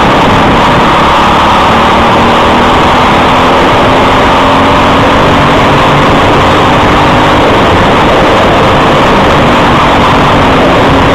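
Briggs & Stratton LO206 single-cylinder four-stroke kart engine running at racing speed, heard from the kart itself. The sound is loud and steady, with wind and track rumble mixed in, and the engine's pitch climbs slowly through the middle as the kart runs down the straight.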